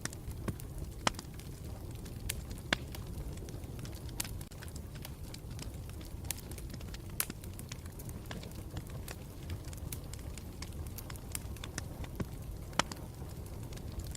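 Campfire burning with a steady low rumble of flame and irregular crackles and pops of burning wood, a few louder snaps standing out.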